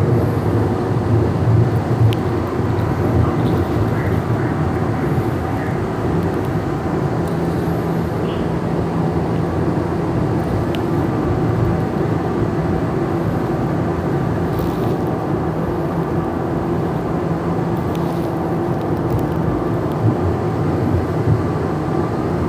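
Siemens S200 light rail vehicle heard from on board while running: a steady rumble of wheels on rails with a low, even hum.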